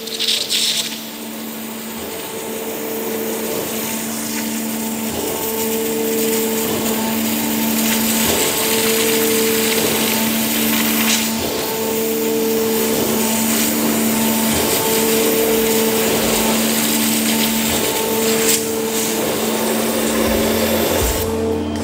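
High-pressure water jet cutting stainless steel: a loud, steady hiss with a machine hum whose tones pulse on and off every two to three seconds.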